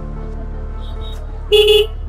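A vehicle horn gives one short honk about one and a half seconds in, over steady background music.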